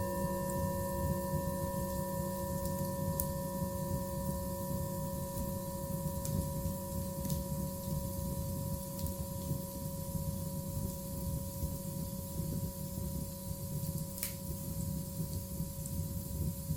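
Meditation soundscape: several sustained, steady ringing tones held over a low rumbling noise, with a few faint clicks.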